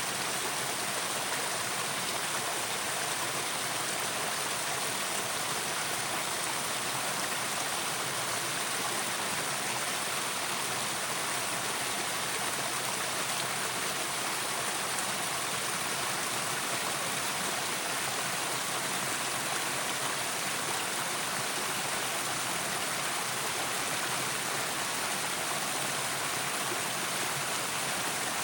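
A river's running water, a steady, even rushing noise that does not change.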